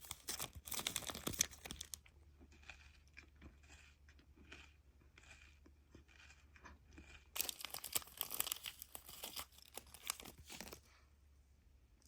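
Granola bar wrapper crinkling and tearing open, then soft crunchy chewing in short bursts, then a second stretch of loud wrapper crinkling about seven seconds in.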